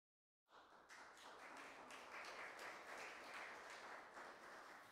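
Faint scattered applause from a small congregation, starting about half a second in and dying away at the end.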